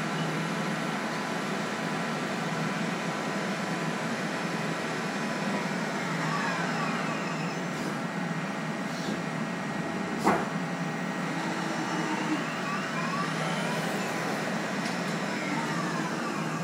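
CNC lathe running while machining aluminium: a steady machine hum and coolant hiss, with a whine that dips and rises in pitch twice, in the middle and near the end. A single sharp clack comes a little past ten seconds.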